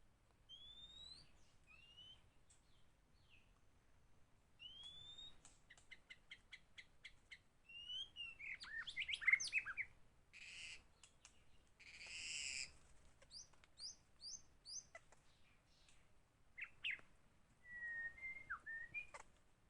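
White-rumped shama singing in bursts: clear rising whistles, quick trilled runs and a couple of harsh rasping notes, with short pauses between phrases.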